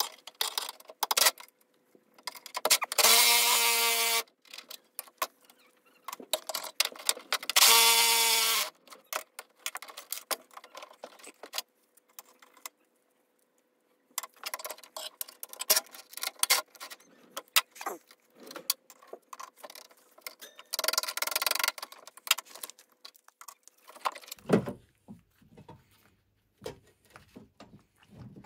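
Metal parts and tools clinking and clattering as they are handled, with two loud, short pitched sounds of about a second each, the first about three seconds in and the second about eight seconds in.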